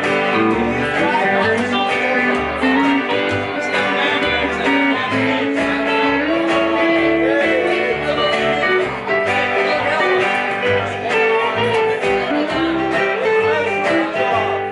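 Live country band of electric guitar, acoustic guitar and upright bass playing an instrumental passage without singing, with the bass plucking a steady line of separate low notes under the guitars.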